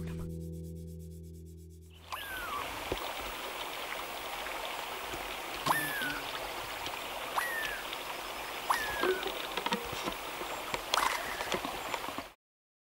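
Strummed acoustic guitar music fades out. Then a steady rushing background like running water comes in, with a short falling chirp repeated about five times, a second or more apart. All sound cuts off abruptly near the end.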